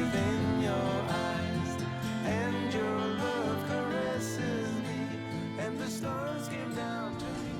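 Background music: an acoustic-guitar-backed pop song with a sung melody between lyric lines, gradually getting quieter.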